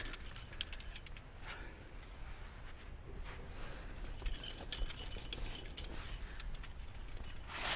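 Metal climbing gear (cams and carabiners on a harness) clinking and jangling while hands and a nylon jacket scrape and rub against the rock of a crack. Irregular clicks and scuffs throughout, with a thin high-pitched whine from about four seconds in.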